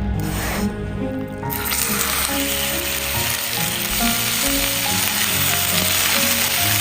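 Stir-fry sizzling hard in hot oil in a pan, the sizzle swelling up about a second and a half in and staying loud.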